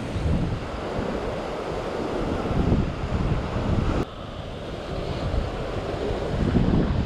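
Ocean surf washing and breaking over rock ledges, with wind buffeting the microphone. The level drops suddenly about four seconds in, then builds again.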